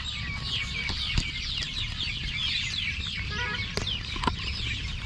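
Many birds chirping together, a dense stream of quick falling chirps, over a low rumble, with a few sharp clicks from handling the scale.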